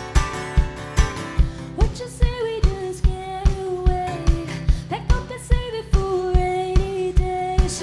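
Live band music with a steady kick-drum beat, a little over two strokes a second, under guitar. A woman's singing voice comes in about two seconds in.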